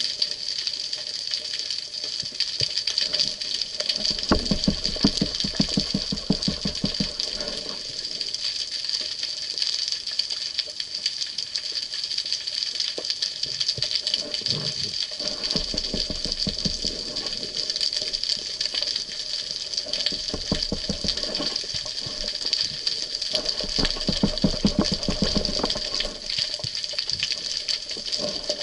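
Underwater sound picked up through a camera's waterproof housing during a dive: a steady high hiss with fine crackle, broken three times by stretches of fast, rapid-fire low rumbling, about four to seven seconds in, around fifteen to seventeen, and again around twenty-three to twenty-six.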